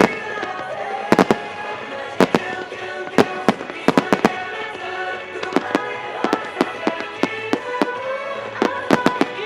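Starmine fireworks shells bursting in rapid, irregular sharp cracks, several in quick clusters, with music playing underneath.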